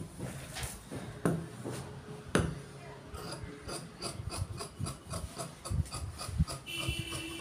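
Tailor's shears cutting through shirt cloth on a cutting table: a quick run of short snips, about three to four a second, with two louder knocks in the first few seconds.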